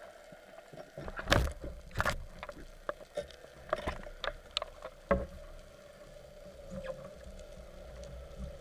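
Underwater sound picked up by a camera during a spearfishing dive: irregular sharp clicks and knocks, the loudest about a second and a half and two seconds in, over a faint steady hum and low rumble.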